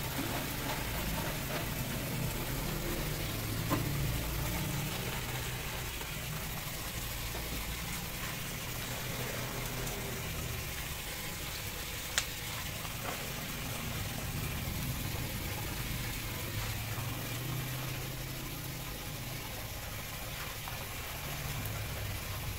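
Food sizzling steadily in hot oil in a cooking pan, over a low steady rumble, with a sharp clink about halfway through.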